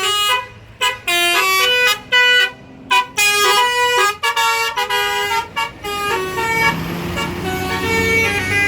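Bus basuri (telolet) musical horn playing a tune of short notes that step up and down in pitch. From about six seconds in, the bus engine rumbles as it pulls away, and the horn notes grow fainter.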